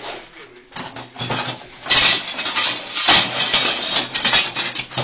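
Metal tools clinking and rattling against each other in a fast, dense clatter, loudest from about two seconds in.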